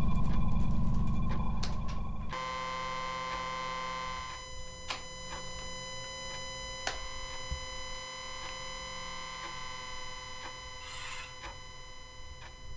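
Electronic sci-fi sound design: a loud low rumble that cuts off suddenly about two seconds in, then a steady synthesizer drone of many held tones. Scattered sharp clicks and a brief crackle sound near the end.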